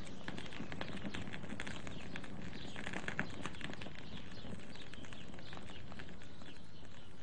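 Quiet, steady background ambience with many faint, irregular chirps and rustles.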